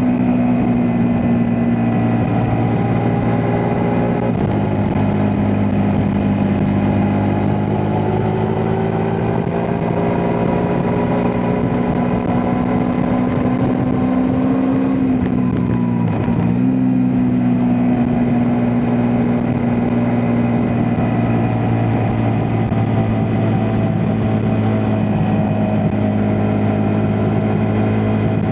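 Ducati Multistrada V4S's V4 engine running under way at fairly steady revs, its note slowly rising. About halfway through the revs briefly dip and pick up again.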